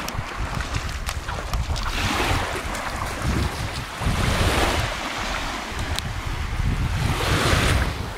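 Small, gentle Baltic Sea waves lapping and washing up a sandy shore, the wash swelling three times, about every two to three seconds. Wind buffets the microphone throughout with a low rumble.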